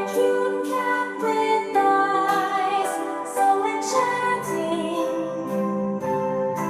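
Background music: a gentle song with a female voice singing over instruments.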